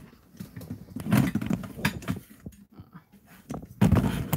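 Handling noise: irregular knocks, bumps and rubbing as a phone camera is picked up and turned. The loudest thud comes about four seconds in.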